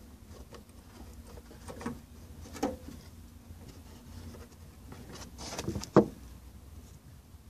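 Small handling noises as a rubber fuel-vapour hose is moved clear of a fuel pump module: soft rubbing and a few light clicks and knocks, the sharpest click about six seconds in.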